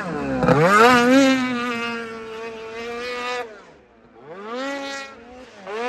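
Snowmobile engine revving. The pitch dips and climbs back in the first second, holds steady, then fades away about three and a half seconds in. It rises and falls once more in a second short rev near the end.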